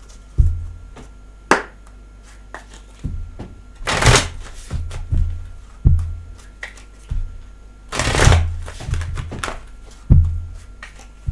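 Tarot or oracle cards being handled on a table: irregular soft thumps and taps, with a brief swishing slide about four seconds in and again about eight seconds in.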